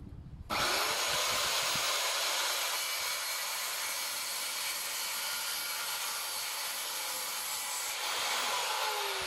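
Handheld corded circular saw cutting along a pine board: a steady cutting noise that starts suddenly about half a second in.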